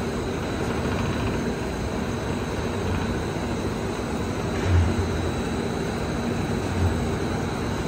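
Solidboard laminating machine running steadily, a continuous mechanical hum of its motors, rollers and conveyors, with a dull low thump about halfway through and again two seconds later.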